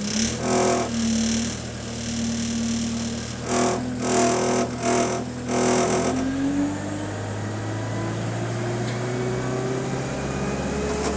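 Bus engine and driveline running under the cabin, broken by several short hissing bursts in the first half. After that the bus pulls away with a steadily rising whine as it gathers speed.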